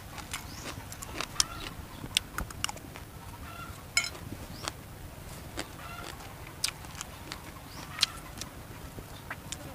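Close-up eating sounds: scattered sharp clicks of a spoon against a plate, with chewing. Hens cluck briefly now and then in the background.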